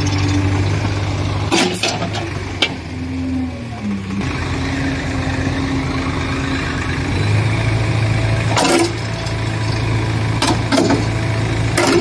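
Heavy diesel engine running under load as a backhoe loader drags a loaded trolley out of mud on a chain. The engine note dips and wavers in the first few seconds, then grows louder about seven seconds in. A few sharp knocks come through, a second or two apart.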